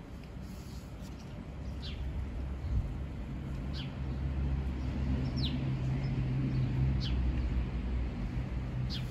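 A bird calling short, high, falling chirps, one about every one and a half to two seconds, over a low rumble that grows louder a few seconds in.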